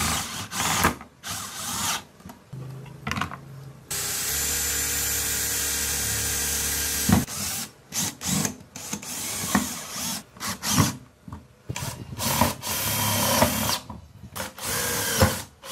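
Electric drill driving screws through corrugated PVC sheeting into steel bars: the motor runs in a series of short bursts, with one steady run of about three seconds in the middle.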